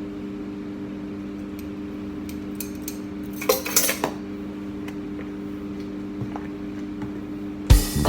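A spoon clinking against a bowl a few times, the loudest clinks around the middle, over a steady low hum. Music starts just before the end.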